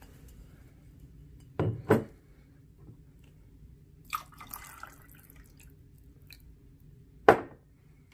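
Gin and juice being mixed in a glass. Bottle and glass are knocked down on a hard surface twice about a second and a half in and once more, louder, near the end, with a short spell of liquid sound around four seconds in. A low steady hum runs underneath.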